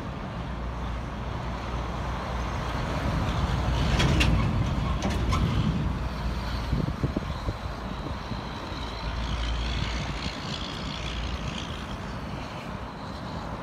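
Road traffic: a vehicle passes on the road, loudest about four seconds in, over a steady low rumble, with a few sharp clicks as it goes by.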